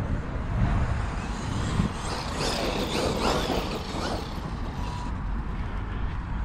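Traxxas Maxx RC monster truck's brushless electric motor whining up and down in pitch as it is driven hard, loudest from about two to four seconds in, over steady wind rumble on the microphone.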